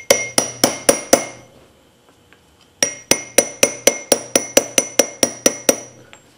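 Small hammer tapping a steel-cased seal into its seat in a hydraulic floor jack, each tap a sharp ringing metal strike. About six quick taps come first, then after a pause a longer run of about a dozen, some four a second.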